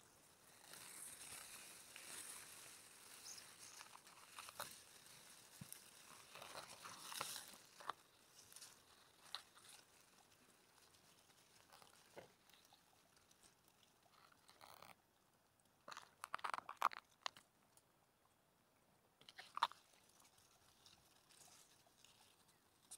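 Faint rustling and crunching of long grass blades as they are brushed and pushed aside, then a few sharper crackles later on.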